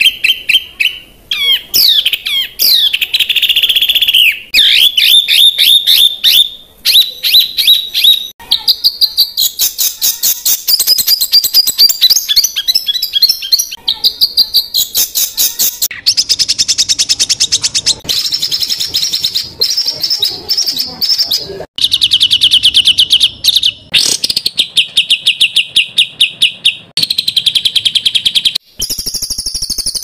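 Songbird tutor recording for training cage birds: a string of loud, fast, high-pitched trills and rolling bursts, many notes a second. The segments are spliced together and change abruptly every few seconds.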